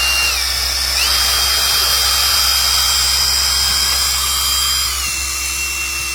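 Electric drill with a King Tony drill bit running and boring into a steel CO2 cylinder: a steady high motor whine that dips briefly near the start, climbs in pitch about a second in, and drops to a lower pitch about five seconds in as the bit bites into the steel.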